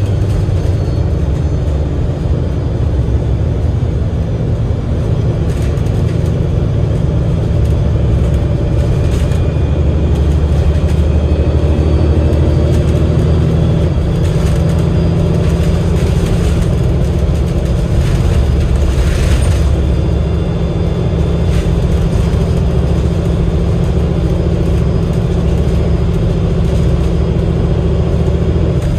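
Cummins L9 diesel engine and Voith automatic gearbox of an Enviro500 MMC double-decker bus heard from on board while under way: a steady low rumble that grows louder about ten seconds in and eases again, with a few brief rattles.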